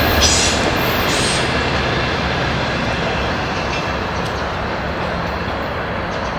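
Train rolling past on the rails, its wheel and rail noise steadily fading as it moves away, with the low engine drone dying out early on. Two brief high-pitched squeals sound in the first second and a half.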